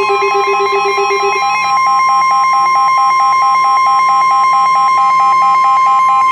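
Weather radio alert for a severe thunderstorm warning: the steady NOAA Weather Radio 1050 Hz warning alarm tone, with rapid pulsing alert beeps of about five a second layered over it. A lower pulsing beep stops about a second and a half in. The tone announces an incoming warning message.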